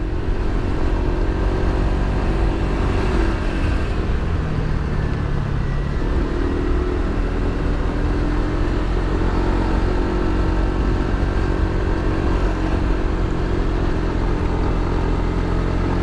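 Motorbike engine running steadily while riding along a road, with road and wind noise. The engine note shifts slightly about four to six seconds in.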